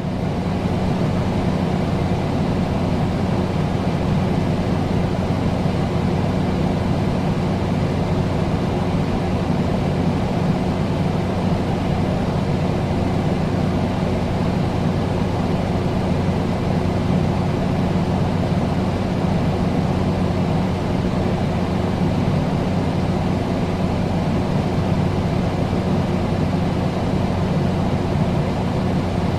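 Air conditioner running: a steady hum under an even rush of blown air, starting abruptly and holding unchanged throughout.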